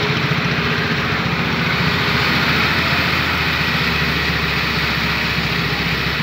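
Heavy diesel engine of a Daewoo excavator running steadily under load as it pulls a log-laden truck, with a fast, even low throb.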